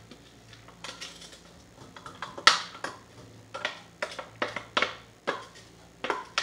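Plastic food processor bowl knocked and tapped against a mesh strainer over a pot to shake out pureed vegetables: a run of sharp clicks and knocks, the loudest about two and a half seconds in.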